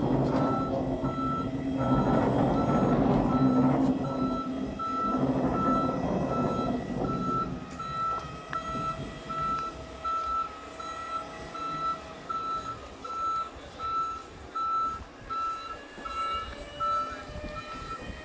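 An Alstom metro train rolls slowly past, its low running rumble fading out about eight seconds in. A steady repeating warning beep sounds over it throughout.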